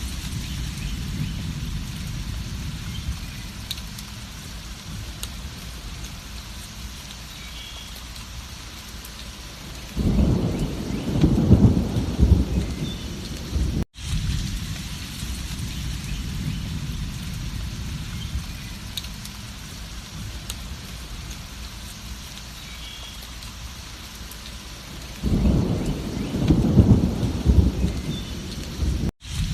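Steady rain with rolling thunder: a deep rumble swells about ten seconds in and lasts a few seconds, and a second one comes near the end. The sound cuts out for an instant twice.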